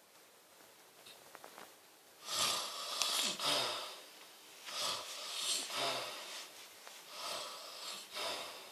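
A person snoring: after about two seconds of quiet, three long snoring breaths, each with a low rattling flutter.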